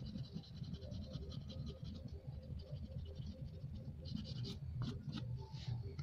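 Oil pastel scraping across paper in quick, short colouring strokes, stopping for a moment in the middle and then resuming, over a steady low hum.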